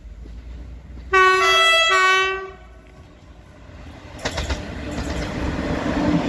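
PKP Cargo ET22 electric freight locomotive sounding its horn in two loud blasts in quick succession. About four seconds in, the locomotive draws alongside and passes with a rising rumble and clattering wheels over the rail joints.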